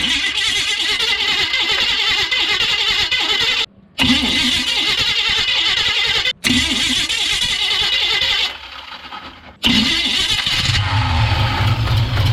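Chevrolet C10's starter cranking the engine through a newly replaced flywheel, in several bursts with short breaks, until the engine catches and runs near the end. The re-shimmed starter meshes with the flywheel without grinding.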